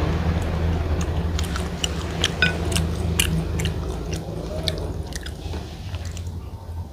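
Close-up chewing of a mouthful of biryani rice, with many small, sharp wet mouth clicks and smacks that thin out towards the end, over a steady low hum.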